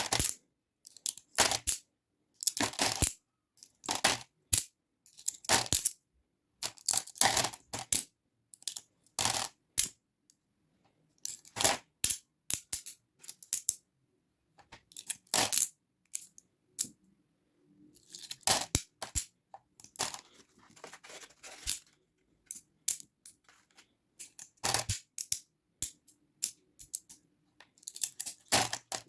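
Slime being squeezed and poked by hand, giving irregular short crackling squishes with brief silent pauses between them.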